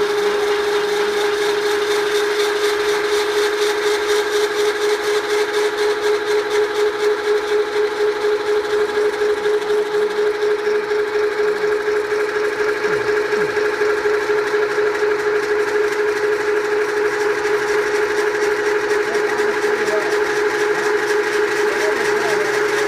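Electric rotary auger drill running: its electric motor and gearbox turning a spiral auger down into the earth, with a steady whine. The level pulses quickly and evenly for several seconds in the middle.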